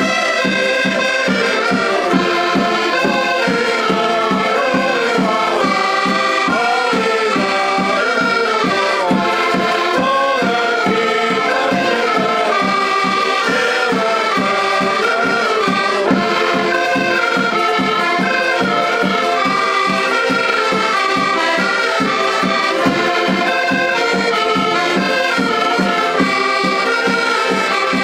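Several diatonic button accordions playing a lively traditional Portuguese folk tune together, over a steady beat from a bass drum.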